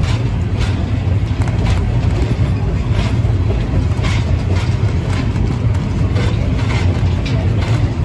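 Passenger train rolling along, heard from aboard: a steady low rumble with frequent irregular sharp clanks and knocks.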